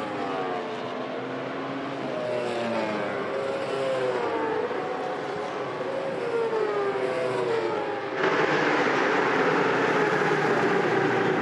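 Endurance racing superbike engine running with its pitch gliding up and down as the rider works the throttle. About eight seconds in the sound jumps suddenly louder and harsher as a bike pulls away up close.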